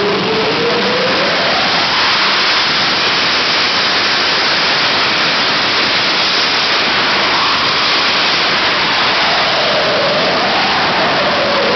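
Jet engine of a jet-powered golf cart running at high power: a loud, steady rushing noise with a turbine whine that rises in pitch over the first couple of seconds, then dips and climbs again near the end.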